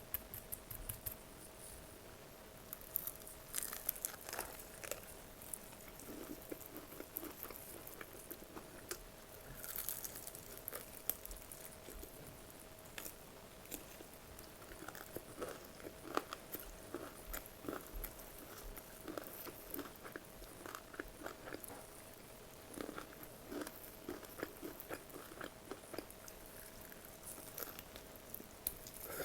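Close-miked chewing and crunching of food: a steady, irregular run of short crisp mouth and bite clicks, with a faint steady hum underneath.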